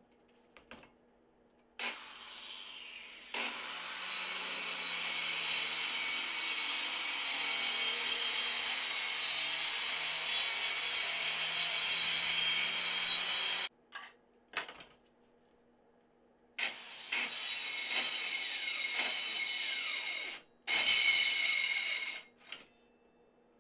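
Makita circular saw ripping plywood. It spins up, then cuts steadily for about ten seconds. After a couple of short blips it makes two shorter cuts, the last ending in a falling whine as the blade spins down.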